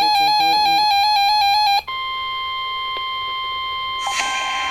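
An electronic alert tone cuts off about two seconds in. After a brief gap, the steady single-pitched warning alarm tone of a NOAA Weather Radio emergency alert sounds, the signal that comes before a spoken warning. A brief rustling noise comes near the end.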